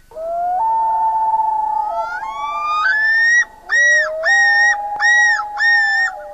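Common loons calling: long wavering wails that overlap and step between pitches. About halfway through, a higher phrase that rises, holds and drops starts repeating, about one a second, as in a loon's yodel.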